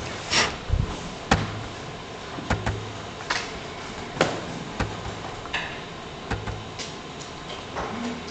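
Computer mouse buttons clicking irregularly, about a dozen sharp clicks, with the mouse handled on the desk in between.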